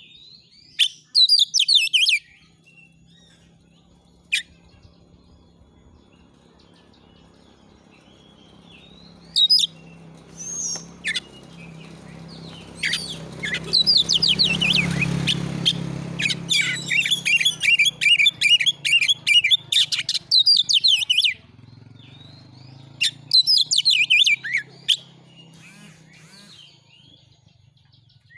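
Oriental magpie-robin (kacer) singing in bursts of rapid, varied, high trilling and warbling phrases. The longest run comes in the middle, over a faint low hum.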